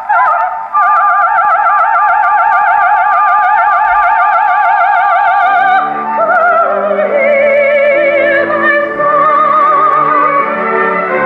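EMG Mark Xb acoustic horn gramophone playing a 78 rpm record of a soprano aria with orchestra through a thorn needle: a long high note held with wide vibrato, then the orchestra comes in fuller and lower about six seconds in.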